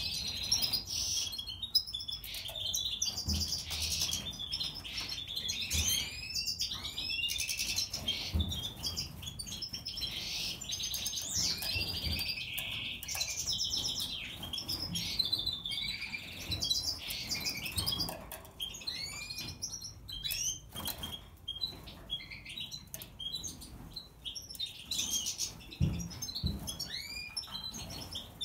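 European goldfinches (Major race) singing: a continuous run of twittering chirps, trills and quick rising and falling whistles. A few soft low thumps come in between.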